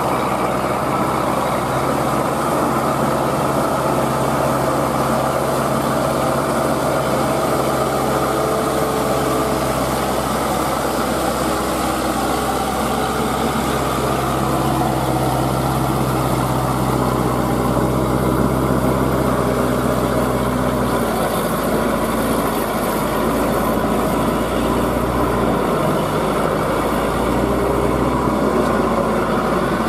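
Diesel engine of a crawler-track rotary tiller running steadily under load as it churns through a flooded paddy; its note shifts about two-thirds of the way through.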